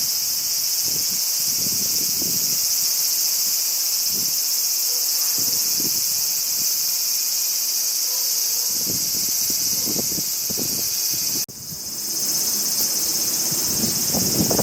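Dense chorus of crickets, a steady high-pitched shrilling, with gusts of wind buffeting the microphone. The chorus drops out abruptly about two thirds of the way through and swells back.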